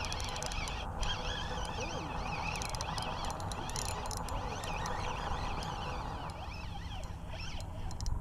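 Many birds calling in overlapping wavering chirps over a steady low rumble, the calls thinning out near the end.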